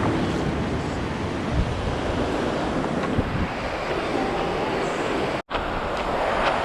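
Ocean surf washing in, with wind buffeting the microphone. The sound drops out for an instant about five and a half seconds in.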